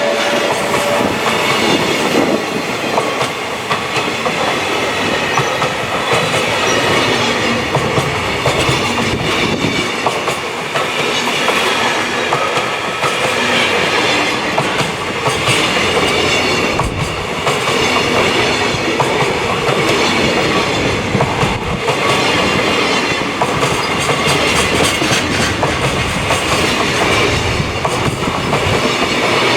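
Freight wagons rolling past at speed, their wheels clacking steadily over the rail joints. A ringing wheel whine fades out in the first second or so.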